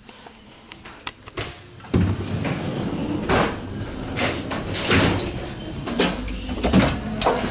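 An inter-car door on an ET2M electric train opens about two seconds in, and the running noise of the moving train comes in loud: a rumble of wheels on rails with repeated clattering and knocking.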